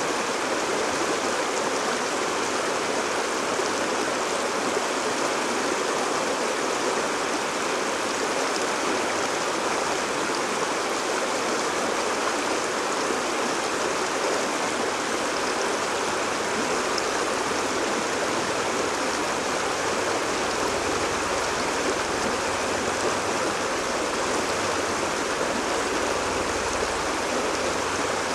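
Shallow rocky stream rushing and splashing over and around boulders in small rapids, a steady, even rush of water.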